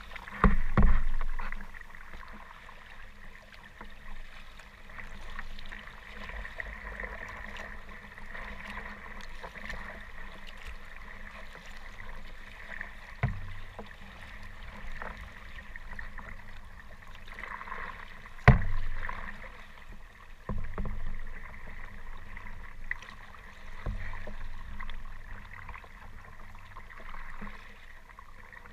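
Water sloshing and lapping around a kayak on rough water, with several sudden thumps against the boat. The loudest thumps come about a second in and again a little past the middle.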